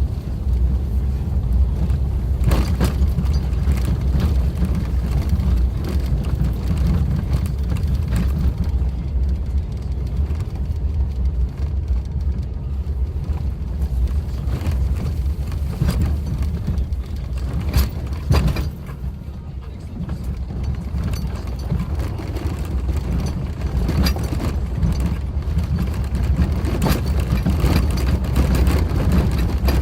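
Suzuki Jimny driving on a rough forest road: a steady low rumble of engine and tyres, with a few sharp knocks and clatters from bumps and stones. The rumble drops briefly a little over halfway through.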